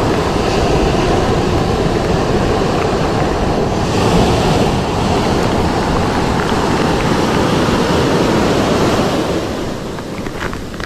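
Ocean surf washing on the beach, with wind buffeting the microphone, a steady heavy rush that eases off near the end, where a few faint clicks come through.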